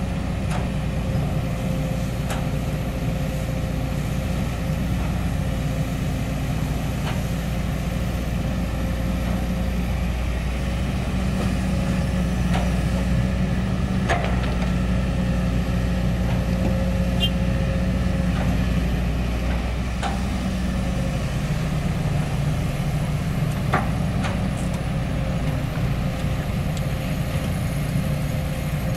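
Kobelco SK200 hydraulic excavator's diesel engine running steadily as it digs and loads soil into a dump truck, a little louder for a stretch in the middle. A few short knocks stand out now and then.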